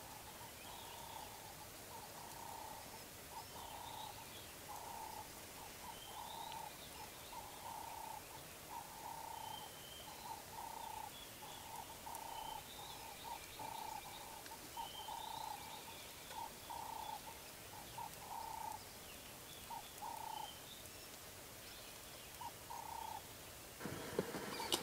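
Outdoor ambience of an animal calling in a long series of short, even notes, about two a second, with faint bird chirps higher up. The calls stop near the end, and a louder steady hiss takes over.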